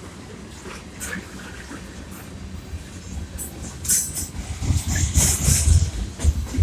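Freight train cars rolling past on the rails: a low rumble of wheels with scattered clicks and clanks. It grows louder about four seconds in, with bursts of hissing noise.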